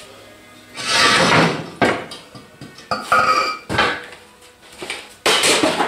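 Steel parts being handled: a scraping clatter about a second in, then several clanks and knocks, one with a brief metallic ring, and another rattle near the end.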